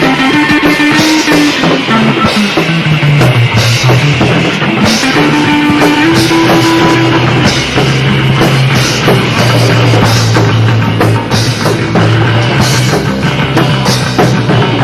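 Improvised rock band playing live in a raw, unmixed recording, with a drum kit and cymbals keeping a steady beat. Over it a low line steps down through several notes and then holds on one low note from about eight seconds in.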